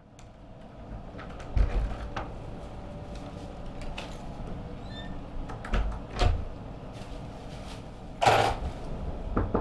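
A room door being unlocked, opened and shut, with several sharp knocks and thumps of someone coming in and moving about, over a steady low room hum. The loudest is a brief, noisy thump about eight seconds in.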